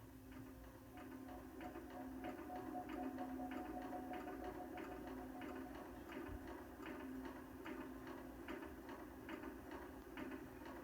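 Steady, even ticking, about one and a half ticks a second, over a low steady hum.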